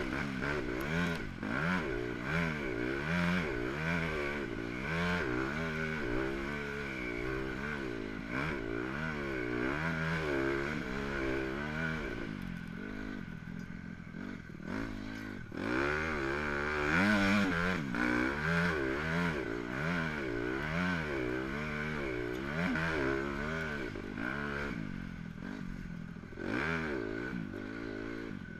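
Motocross bike engine being ridden hard on a dirt track, its pitch rising and falling over and over as the throttle is opened and shut through the ruts, with a brief easing-off about halfway through.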